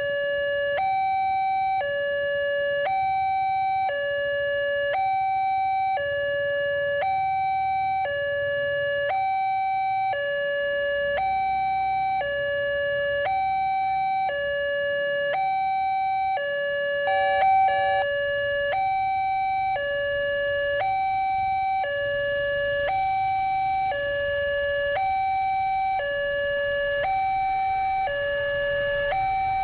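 Railway level-crossing warning alarm from the loudspeaker on the signal post: an electronic two-tone chime alternating steadily between a lower and a higher pitch about once a second, the signal that a train is approaching and the barrier is closed. A faint rushing noise grows beneath it in the last several seconds.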